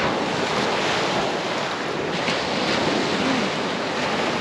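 Sea surf washing on the beach, a steady rush, with wind on the microphone.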